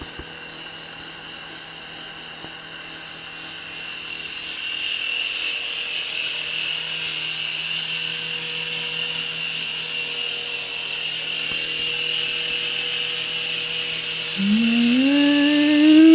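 Small electric remote-control toy helicopter flying, its motor and rotor giving a steady high whine. About three-quarters of the way through, a lower tone joins in, rising in pitch and getting louder.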